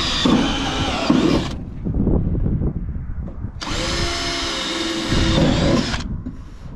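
Makita cordless drill boring pilot holes in the centre of a rib of 0.5 mm sheet-metal roofing before the roofing screws go in. One run of the drill motor's whine stops about a second and a half in, and a second run of about two and a half seconds starts near the middle.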